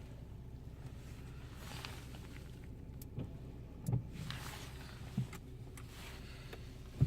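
Car engine idling, heard from inside the cabin as a steady low hum, with a few light clicks and knocks about three, four and five seconds in.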